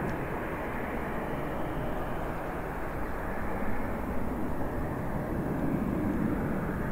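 Steady rushing jet noise of a Boeing 787-8 airliner, swelling slightly now and then.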